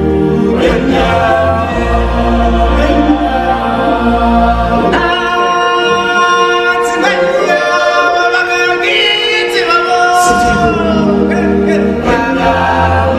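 Live stage-show music: a group of singers over band accompaniment, with a deep bass that drops out midway and comes back near the end.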